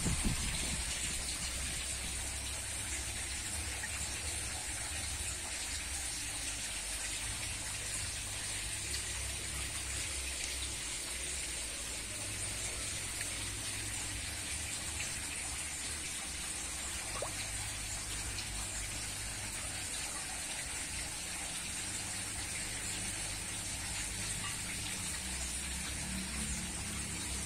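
Steady gushing of water at a concrete catfish pond, with the surface stirred by crowded catfish.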